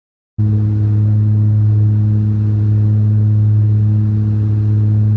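An engine running steadily, a loud, even drone with a low hum that holds one pitch. It cuts in abruptly about half a second in, after silence.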